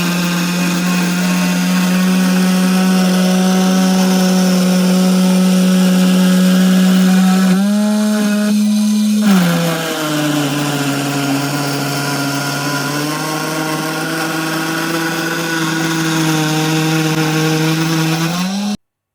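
Electric power tool running with a steady motor whine. Around eight seconds in it dips and breaks briefly, then runs on at a lower pitch, rises slightly and stops abruptly near the end.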